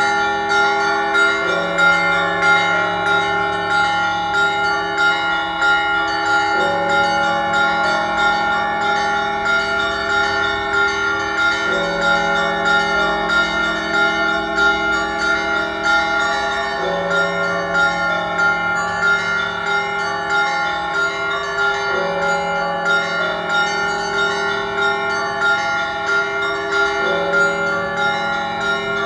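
Cathedral bells ringing a full peal: small bells struck rapidly and continuously over deeper bells. The low tone shifts back and forth about every five seconds.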